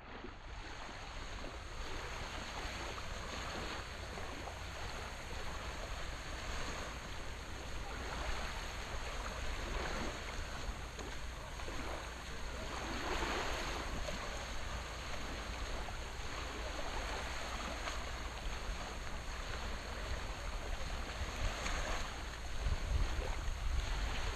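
Small waves washing gently along the shallow shore of a sandbar, with wind buffeting the microphone as a low rumble that grows stronger near the end.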